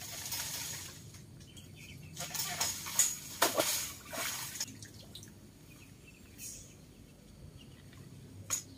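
Banana leaves rustling and crackling in irregular bursts as a banana blossom is knocked down from the plant with a long pole, with a couple of sharp cracks about three seconds in.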